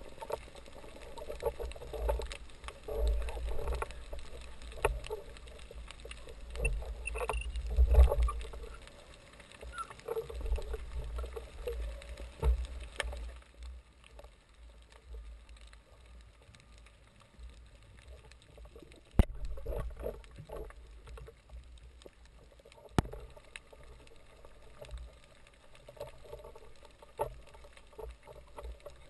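Muffled underwater sound picked up through an action-camera housing: water swishing with low rumbles, heavier in the first half and dropping after about halfway, and two sharp knocks later on.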